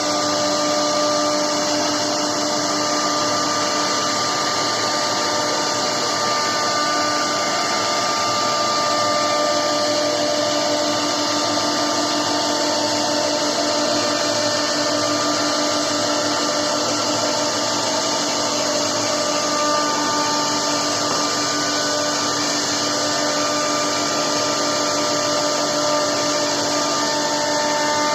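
CNC wood router running steadily, its spindle giving a steady whine over a hiss as it carves a wooden board.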